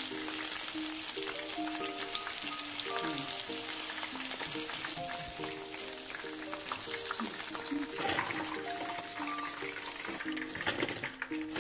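Battered chicken pieces deep-frying in hot oil on a high flame, a dense, steady crackle and sizzle of bubbling oil, with background music over it.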